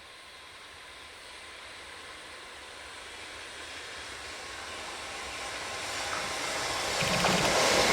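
Freight train hauled by an EH500 electric locomotive approaching, its sound growing steadily louder, with a thin steady ringing over it and a low rumble setting in near the end as it nears.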